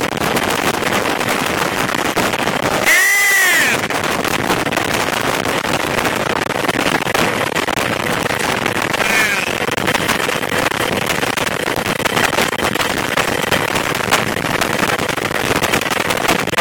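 Helicopter in flight heard from inside the cabin: a steady, rapid chop of the rotor over engine noise and wind on the microphone, with a brief louder rush about three seconds in.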